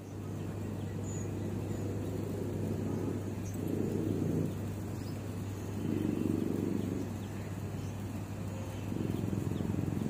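A dove cooing three times, each low call lasting about a second, over a steady low hum.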